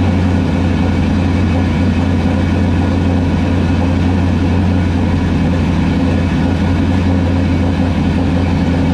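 GM LS V8 swapped into a Pontiac Trans Am idling steadily, heard at the open engine bay, just after its first start following seven months of storage.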